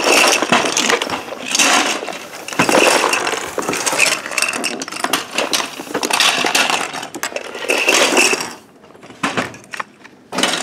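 Plastic construction-toy pieces and gears clattering and clinking as they are tossed into storage bins and boxes, a dense rattle that thins out about eight and a half seconds in to a few scattered clicks.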